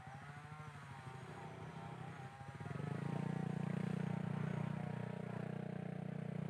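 Motorcycle engine running, growing louder about two and a half seconds in and then holding steady as it pulls harder.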